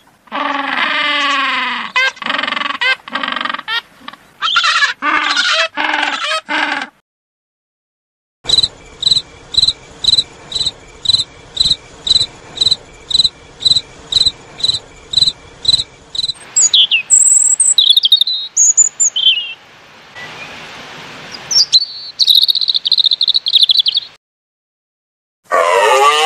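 A sequence of animal calls. First, about seven seconds of penguins calling in wavering, repeated calls. Then, after a short gap, a cricket chirping steadily at about two and a half chirps a second for some eight seconds, followed by scattered high chirps and trills. Near the end, after another short gap, a wavering, moo-like call begins.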